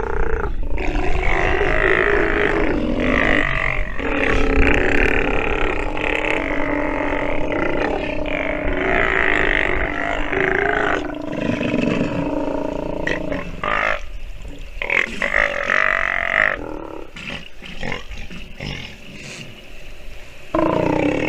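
Steller sea lion pup making long, deep growling roars like an adult's, one call after another, softer and more broken for a few seconds near the end.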